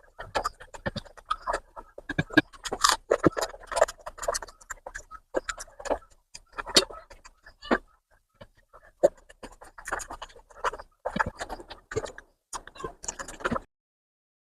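Close-miked eating sounds: wet chewing and lip-smacking of mutton fat curry with rice, in quick irregular smacks. They pause briefly about eight seconds in and stop shortly before the end.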